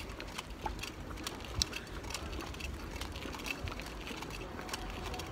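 Street ambience heard through a handheld phone while walking: a low, steady rumble with irregular small clicks and rubbing on the microphone.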